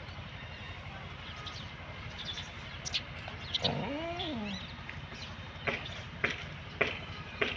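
A single drawn-out animal call, a bit under a second long, rising and then falling in pitch about halfway through, over a steady low hum, with short high chirps in the second half.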